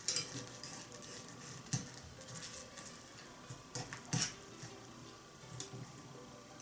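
Offal hotpot simmering in a small iron pot, bubbling and sputtering with irregular pops and a few sharper clicks.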